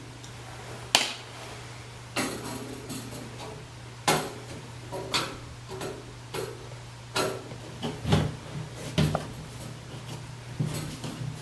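Irregular knocks and clanks as the metal panels of a computer case are handled and its sliding side door is worked, over a steady low hum.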